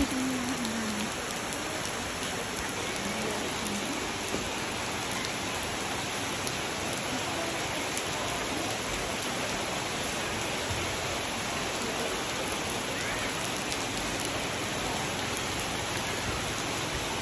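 Steady rain falling on a wet wooden deck and shelter roofs, an even hiss with scattered drop ticks.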